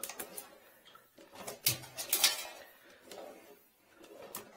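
Scattered clicks and knocks with soft rustling, from the yellow push cable and reel of a sewer inspection camera being handled.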